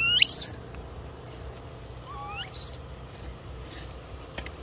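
Two short, high-pitched animal calls that sweep up in pitch and then fall back, one right at the start and one about two and a half seconds in.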